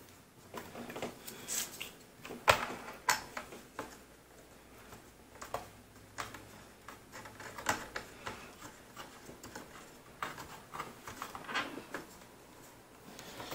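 Irregular light clicks and taps of hands screwing an antenna onto the threaded gold connector of a Netgear Nighthawk X4S router and turning it into position. The loudest click comes about two and a half seconds in.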